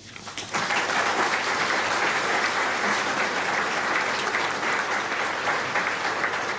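A large audience applauding: a few scattered claps at first, then from about half a second in steady, dense applause.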